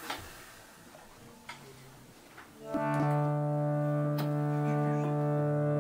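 A few soft clicks, then about three seconds in a harmonium starts a loud sustained chord, its reeds holding several steady notes together.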